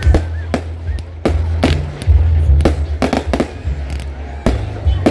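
Fireworks display: about a dozen sharp bangs from aerial shells bursting in quick, irregular succession, over music with a deep bass line.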